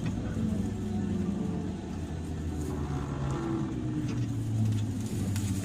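Onboard running sound of a JR 103 series electric multiple unit, heard inside the motor car: steady rumble with traction-motor and gear hum whose tones drift slowly down in pitch as the train slows.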